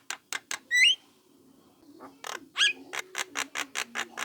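Young Javan myna (jalak kebo) calling: a run of quick, sharp clicks, a short rising squawk about a second in, a brief pause, then another rising squawk followed by more rapid clicks at about five a second.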